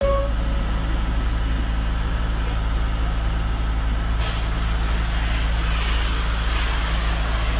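Motor launch's engine running with a steady low drone. About four seconds in, a hissy rush of noise joins it.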